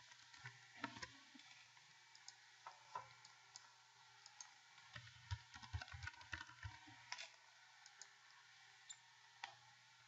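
Faint computer keyboard typing and mouse clicks: scattered single clicks, with a quick run of keystrokes between about five and seven seconds in.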